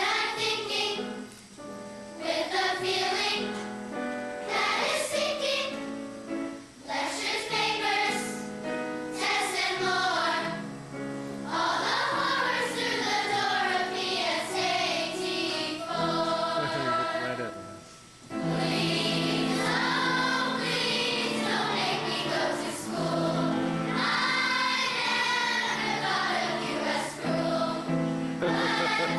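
A children's choir singing a song with accompaniment under the voices.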